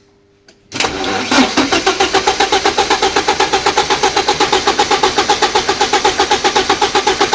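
Porsche 944 Turbo's turbocharged four-cylinder engine being cranked by its starter, beginning about a second in with an even, rapid rhythm that never picks up because the engine does not fire. It cranks without catching because there is no spark and no injector pulse.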